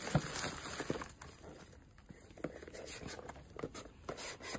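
Plastic packaging crinkling and rustling in irregular strokes, with a few light taps, as parcels and boxes are handled.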